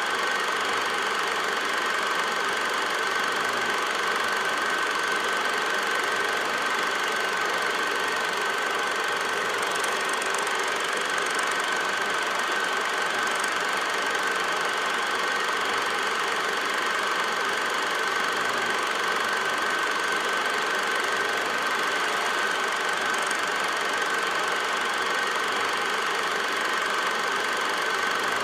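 8mm film projector running: an unbroken mechanical whir with a constant high-pitched tone.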